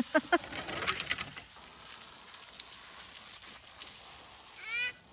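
Metal sled runners scraping over an icy road, a hiss with a few clicks that fades as the sled moves away. A few short high calls sound right at the start, and one short rising-and-falling call comes near the end.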